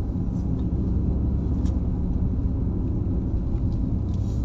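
Steady low rumble of a car's road and engine noise inside the cabin while driving.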